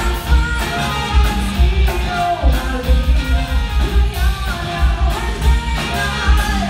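Live pop band playing with a singer: drums and bass keeping a steady beat under guitar and a sung melody line.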